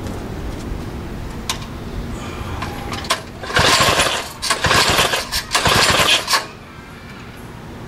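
3 hp Tecumseh single-cylinder engine being pull-started: a low uneven rumble, then about three seconds of loud surges from repeated pulls, without settling into a steady run. It is hard-starting, which the owner puts down to the engine sitting on its side and wetting the spark plug.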